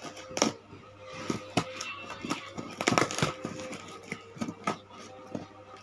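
Packing tape being peeled and ripped off a cardboard box, with crackling of the tape and rustling of the cardboard: irregular snaps and crackles, with the loudest ripping stretch about three seconds in.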